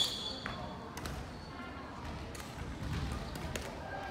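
Badminton play on a sports-hall court: a short, high shoe squeak on the floor right at the start, then scattered sharp taps of racket on shuttlecock and dull footfall thuds.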